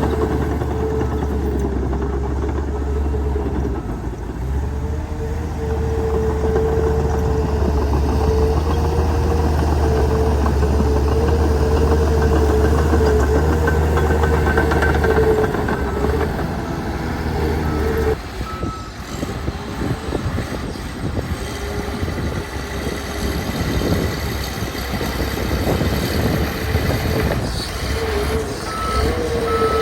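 Heavy earthmoving machine's diesel engine working under load, with a steady whine over a deep rumble that eases off a little past halfway. A reversing alarm beeps briefly about halfway through and again near the end.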